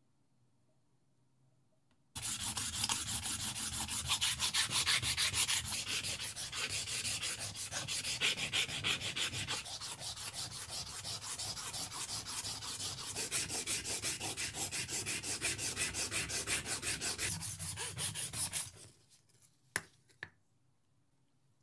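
Pearl oyster shell scrubbed rapidly back and forth on a coarse abrasive strip, grinding down its rough outer surface: a gritty scraping with many fast strokes. It starts about two seconds in and stops abruptly near the end, followed by a couple of light clicks.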